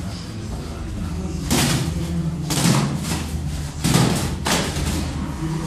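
Blows landing during kickboxing sparring: about four dull thuds and slaps of boxing gloves and kicks striking, at irregular intervals, over a steady low hum.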